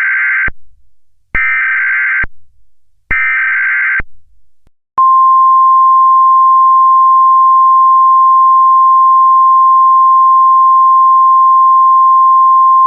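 Emergency Alert System alert: three bursts of SAME digital header data, each about a second long, then a single steady warning tone, the 1050 Hz attention tone, held for about eight seconds.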